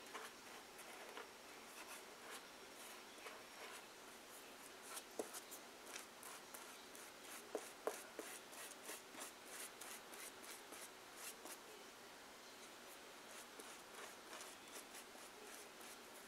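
Faint, quick strokes of a paintbrush dabbing and brushing glue onto paper-covered cardboard, many small scratchy swipes in a row.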